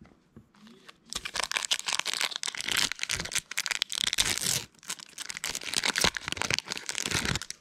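The wrapper of a Topps Bowman's Best baseball card pack crinkling and tearing as it is ripped open by hand. It starts about a second in, with a short pause a little past halfway.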